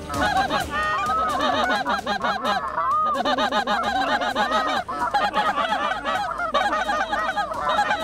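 A flock of geese honking, many calls overlapping in a dense, continuous chorus.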